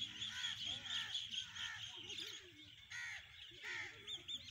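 Birds calling: a run of short, arching calls and high chirps, with a couple of louder calls about three seconds in.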